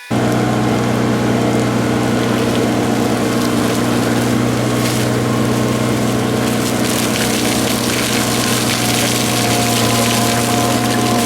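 Cat D5 bulldozer's diesel engine running steadily with a heavy low drone, starting suddenly at full level.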